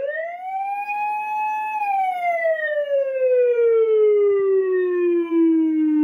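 Whelen WS-295-MP electronic police siren sounding a wail: one tone rises in pitch for nearly two seconds, then falls slowly through the rest.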